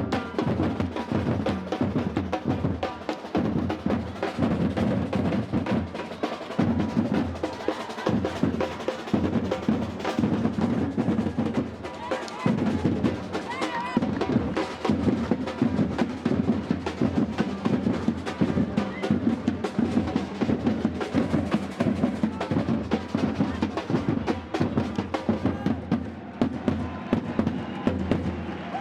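Brazilian batucada percussion ensemble playing a fast, dense drum rhythm, with deep bass drums under snare drums.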